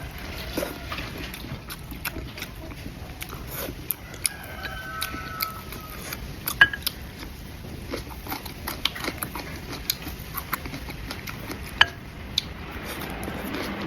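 Close-up eating sounds: a person chewing food, with many small wet clicks and two sharper clicks about a third and five-sixths of the way through.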